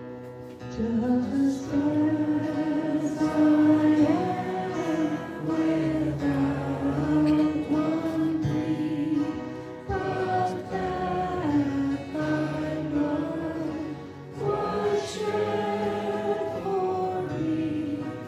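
Group of voices singing a slow hymn in long held phrases, starting about a second in, with short breaths between phrases twice.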